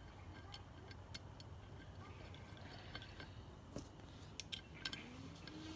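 Faint, scattered light clicks and ticks of small transmission valve-body parts being handled on the bench, bunched together a little past the middle. A faint low hum rises in pitch and then holds near the end.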